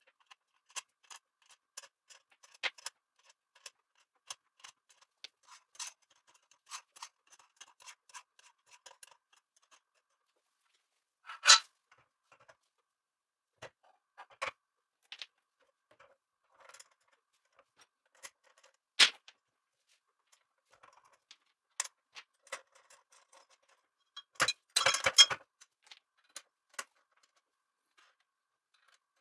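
Small metal T-nuts and aluminium parts of a desktop CNC router kit clicking and clinking as they are handled and fitted, with light scattered clicks at first, a few sharper single knocks, and a short burst of rattling clatter near the end.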